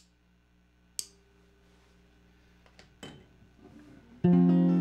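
A lighter clicks sharply as a cigarette is lit, over a faint steady electrical hum. About four seconds in, a chord is strummed on an archtop guitar and rings out loudly.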